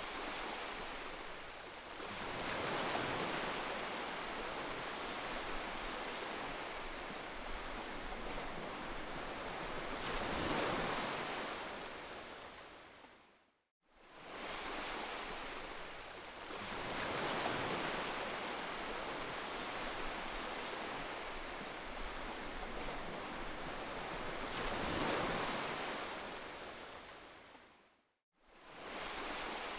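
Heavy rain falling in a steady hiss that swells and eases every few seconds. It fades out to silence and straight back in twice, once about halfway through and once near the end, where the looped recording restarts.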